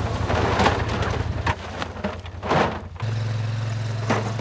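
Vehicle engines running with a steady low hum, with several rustling bursts over the first three seconds; about three seconds in the hum shifts to a slightly higher, steadier tone.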